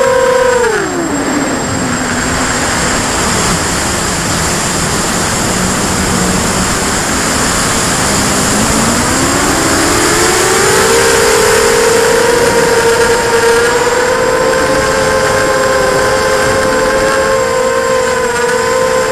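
The four EMAX MT2204 2300KV brushless motors and 5-inch propellers of a 250-size racing quadcopter whining under a steady hiss, heard from the onboard camera. The pitch drops sharply about a second in as the throttle is pulled back to minimum thrust. It stays low, climbs back over a few seconds around the middle as power is added, then holds steady.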